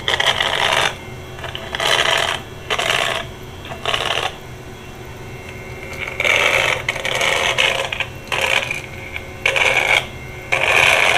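Fluke 200FP filter probe for tracing telephone wires, its tip rubbed along the terminals of a 66 punch block. It gives irregular bursts of scratchy static, each under a second, as it searches for the wire carrying the toner's signal.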